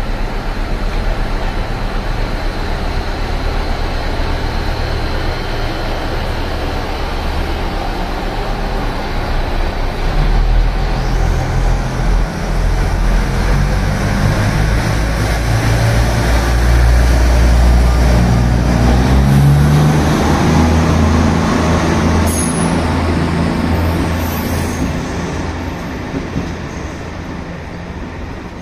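Former JR Central KiHa 85 diesel railcar train pulling out of the station: the low drone of its Cummins diesel engines swells as it accelerates, rising in pitch and loudest about two-thirds of the way through, then fades as the train draws away.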